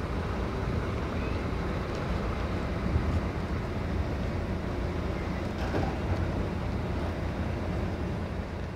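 Steady low rumble of a heavy haulage truck's engine and the tyres of its multi-axle low-loader trailer rolling along the road under a heavy load.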